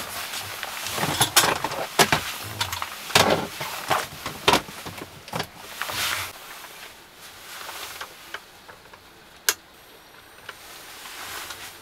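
Storage drawer boxes being opened and items handled: a quick run of knocks, clacks and rustles for about six seconds, then quieter. Later a single sharp click as the switch knob of an LED lantern is turned.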